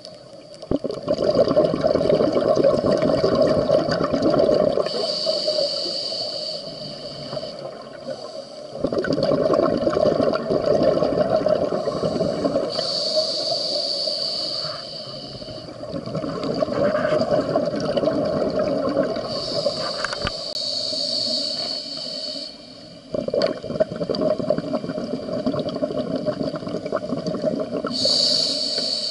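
Scuba diver breathing through a regulator: about four long, bubbling exhalations, each followed by a shorter hissing inhalation.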